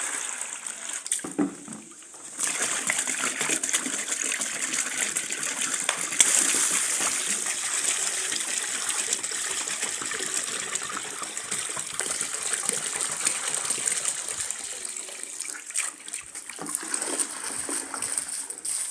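Soapy water poured from a bucket onto a carpet, gushing and splashing: one pour stops about two seconds in, then a longer pour runs on and thins out into patchy splashes near the end.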